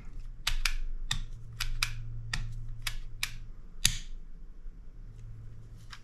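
Sharp plastic clicks from a Canare TS100 coax stripper as its cable-setting cam is turned to a preset, about ten clicks in the first four seconds, with a low steady hum underneath.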